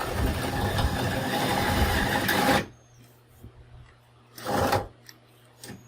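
Power drill boring a test hole sized for a 1/4-20 rivnut, running steadily for about two and a half seconds and stopping, then a second short burst of drilling about four and a half seconds in.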